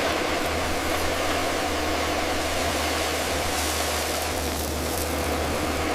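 A steady motor hum under a loud, even hiss, with no distinct strokes or changes in pitch.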